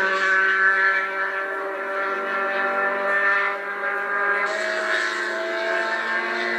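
Race car engines running at high revs, a steady, held note that shifts in pitch about four and a half seconds in.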